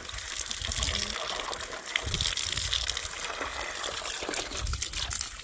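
Water running from an outdoor hose and splashing into a plastic bucket in a steady gush, with gusts of wind rumbling on the microphone.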